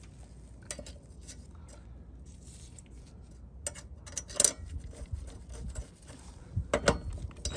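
Light metallic clicks and knocks of a steel mower blade being set onto the blade adapter and its bolt started by hand, with a few sharper clicks about halfway and near the end.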